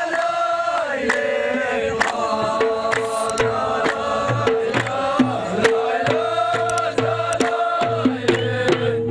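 Amazigh ahwach music: a chorus of men chanting together, with hand-beaten frame drums coming in about a second in and striking in an uneven, busy rhythm.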